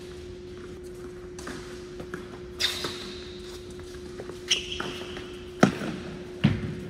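Tennis ball hits and bounces in an indoor tennis rally: four sharp hits, the loudest two near the end, with a couple of short high squeaks, likely shoes on the court. A steady hum runs underneath.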